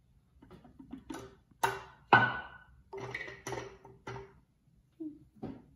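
Carrot pieces dropped one after another into the plastic work bowl of a Cuisinart mini food processor: a series of hollow knocks and clatters, some with a brief ringing, the loudest about two seconds in.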